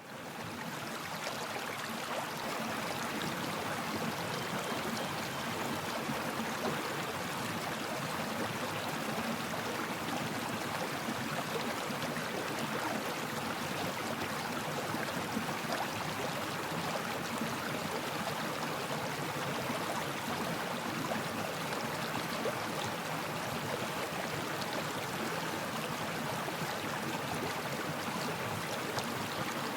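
Steady sound of flowing water in a stream or river, fading in over the first second.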